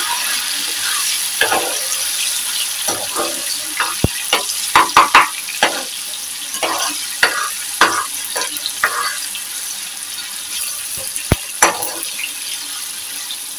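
Chopped onion and tomato sizzling in hot oil in a frying pan, with a metal slotted spoon scraping and knocking against the pan as it is stirred. The spoon strokes come thickest from about four to nine seconds in.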